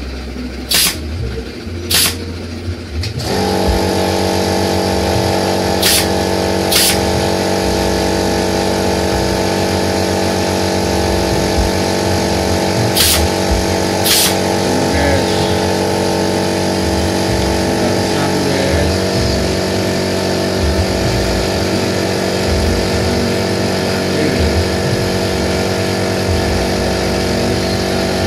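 Pneumatic brad nailer firing six sharp shots in pairs as it drives brads into thin wooden slats. About three seconds in, a steady machine hum starts and runs on underneath.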